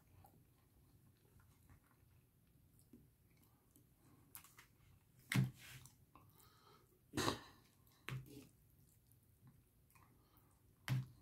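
A person chewing a mouthful of lamb curry and rice, faint and wet, with a few short mouth sounds and small clicks scattered through it.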